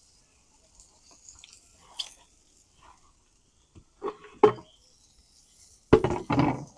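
A person chewing and eating a spoonful of gumbo close to the microphone, with small mouth clicks and louder eating sounds about four seconds in and again near the end.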